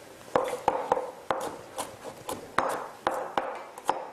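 Kitchen knife chopping vegetables on a wooden cutting board: a run of sharp, uneven knocks, about three a second.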